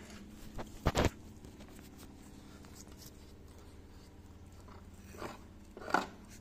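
A corgi gnawing on the edge of a wooden crate, her teeth crunching and cracking the wood in a few sharp snaps: a quick double crack about a second in, and two more near the end.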